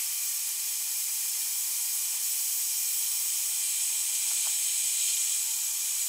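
Dyson Supersonic hair dryer running at its highest fan speed on the cold setting: a steady rush of air.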